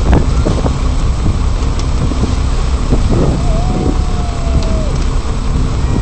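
Tarpon splashing and thrashing at the surface beside the boat, in bursts at the start and again about three seconds in, over a steady low rumble of wind and boat noise. A single held tone sounds briefly in the middle.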